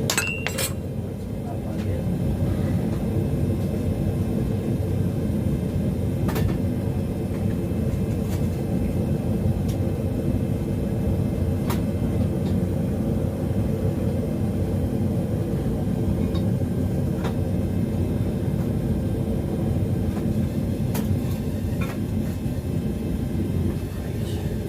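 Gas forge burner running with a steady low rush, heating the work toward welding heat, with a few scattered sharp clicks.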